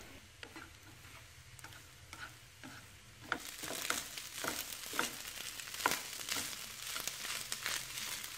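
Egg fried rice being stir-fried over low heat in a nonstick pan, a wooden spatula and chopsticks tossing and scraping the rice. A few faint clicks at first, then from about three seconds in a soft sizzle with repeated scraping strokes, about two a second.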